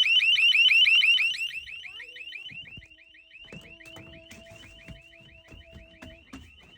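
Security alarm siren sounding a fast warbling chirp, about eight chirps a second, during an alarm test. It drops much quieter about a second and a half in and keeps going, with faint clicks and knocks in the second half.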